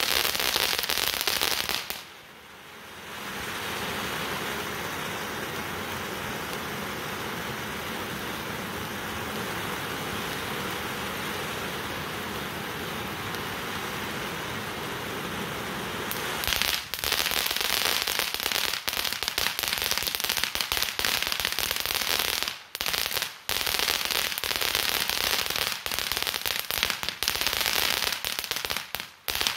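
Big Fireworks Jumbo Train fountain firework burning. It crackles densely for the first two seconds, then gives a steady hissing spray of sparks, and from about halfway through crackles loudly again with a few brief gaps, stopping abruptly just before the end.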